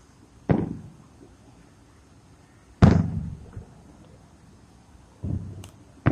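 Distant aerial fireworks bursting: three sharp booms about two and a half seconds apart, each trailing off in a low rolling echo, with a fourth boom starting at the very end.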